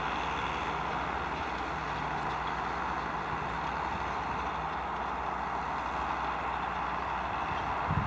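New Holland 8560 tractor's six-cylinder diesel engine running steadily under load while pulling a four-furrow reversible plough through the soil. A brief knock comes just before the end.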